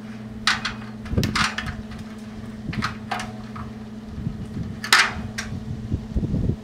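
Leafy cherry-tree branches rustling and snapping in several short sharp bursts as cherries are picked by hand, with a few dull knocks and a steady low hum underneath.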